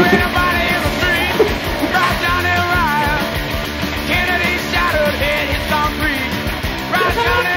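Rock music with a lead singer over loud, steady guitar and drum backing.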